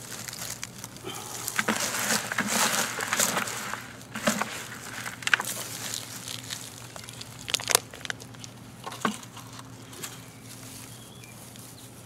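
Hands scooping, mixing and firming loose garden soil among dry straw mulch: irregular rustling and crunching, heaviest in the first few seconds, with a few sharp crackles around the middle.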